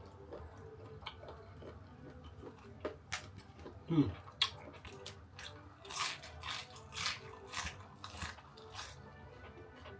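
A person chewing crunchy food close to the microphone, with sharp crisp crunches about twice a second from about three seconds in.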